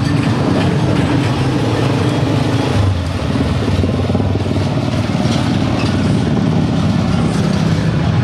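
A motor vehicle's engine running steadily, with a brief dip in level about three seconds in.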